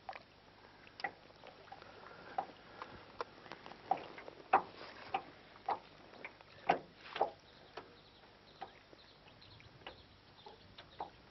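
Small waves lapping against an aluminium boat hull, giving irregular light slaps and knocks at uneven intervals.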